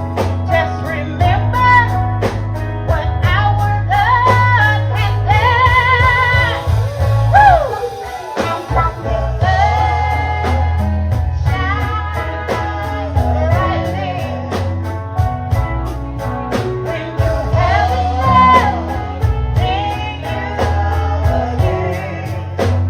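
Gospel band playing live: a lead singer holding long wavering notes over a heavy bass line, guitar and a steady drum beat.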